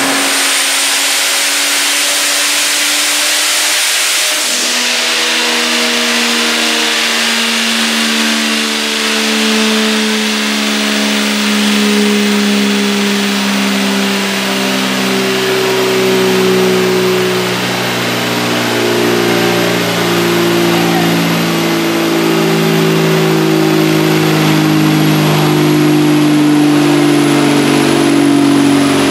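Turbocharged, stock-long-block Vortec 4200 inline-six running under load on a chassis dyno, its engine note held and slowly climbing in pitch. A loud hiss fades out after about four seconds, and a faint high whine falls slowly throughout.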